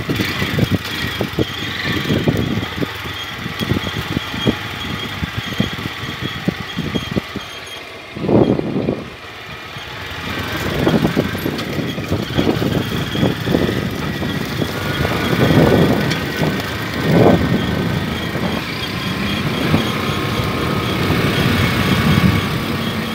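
Motorcycle engine running at low speed on a rough, wet dirt road. The engine note rises and falls several times with the throttle, with a brief lull a little before the middle. Many small knocks and rattles come from the bike jolting over the bumps.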